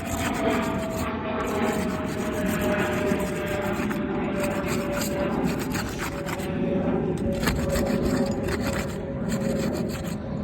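Asphalt roof shingles being pried up to break their sealant strips: continuous scraping and rubbing of shingle against shingle and tool. A faint steady tone runs underneath, slowly falling in pitch.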